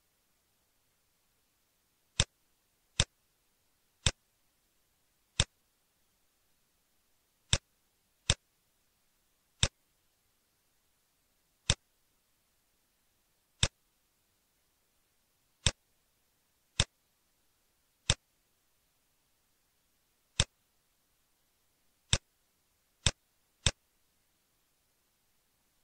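Computer mouse button clicking: about sixteen single sharp clicks at irregular intervals of roughly one to two seconds.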